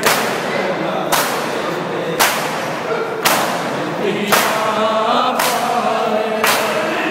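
Shia mourners doing matam: many bare-chested men slap their chests in unison, one sharp slap about every second, over a group of men chanting a lament.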